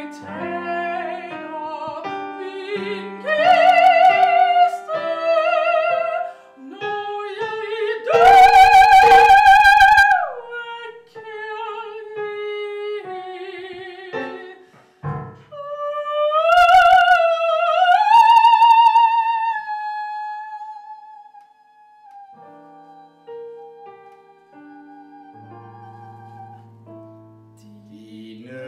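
Female opera singer singing a melody with wide vibrato over piano accompaniment. Her loudest held high notes come about four, nine and seventeen seconds in, and the music grows quieter and softer near the end.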